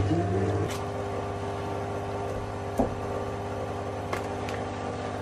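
Steady electrical hum of a microwave oven running, with a couple of light knocks partway through.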